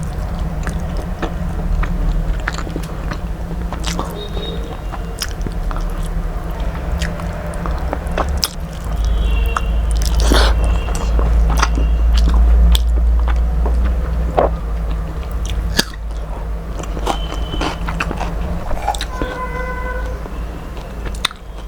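Close-miked chewing and mouth noises of a person eating fish curry and rice, with frequent small wet clicks and smacks, over a steady low hum that grows louder for several seconds in the middle. A short ringing note sounds near the end.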